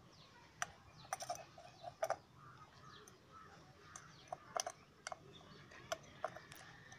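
Faint, scattered clicks and taps as a tractor headlight's bulb holder and chrome reflector housing are handled and fitted back together.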